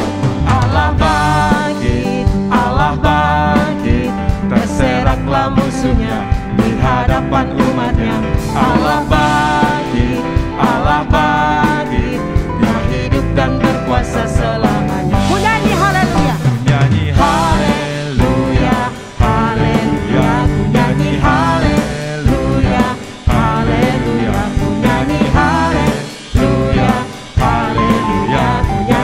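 Live worship band playing an upbeat Indonesian praise song on drum kit, bass guitar and keyboard, with a man and a woman singing the melody together into microphones.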